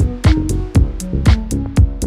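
Electronic background music with a steady drum-machine beat, about two strong beats a second, over sustained synth notes.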